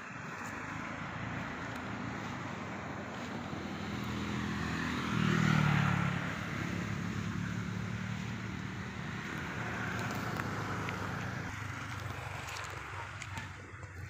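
A motor vehicle passing on a road, its engine hum swelling to a peak about halfway through and then easing off.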